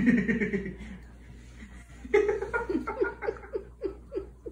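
A person laughing: a run of short 'ha' pulses, about four a second, falling in pitch, beginning about two seconds in after a brief voiced sound at the start.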